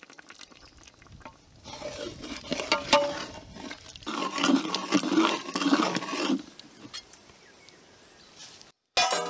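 A metal ladle stirring quail pieces through thick, wet masala and almond paste in an aluminium pot, giving squelching sounds with knocks and scrapes against the pot; the stirring is loudest in the middle. A sudden metallic clang comes at the very end.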